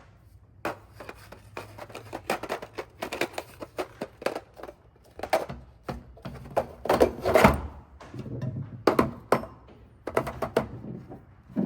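Metal sockets and hand tools clicking and clacking against a 3D-printed plastic socket organizer as they are handled, pulled out and set back in. The clicks come fast and uneven, several a second, with a louder cluster a little past the middle.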